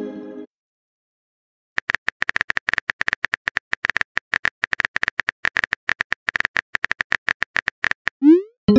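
Rapid simulated keyboard tapping from a texting-story app, a fast run of short clicks at about ten a second as a message is typed out. Near the end a quick rising swoop and chime mark the message being sent.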